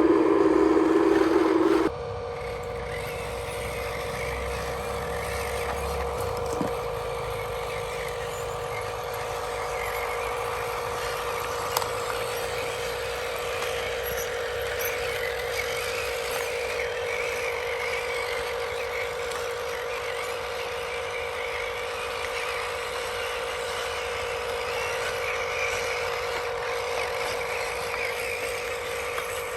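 Radio-controlled toy construction vehicle running, a steady electric motor and gear hum, after a loud steady tone that cuts off about two seconds in.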